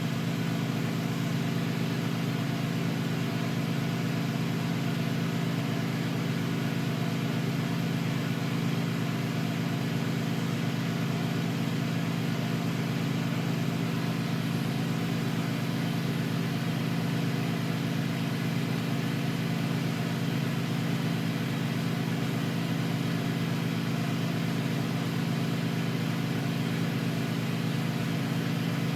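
Neon-bending burner running steadily: an even rushing sound over a low hum that does not change, as glass tubing is heated for a side weld.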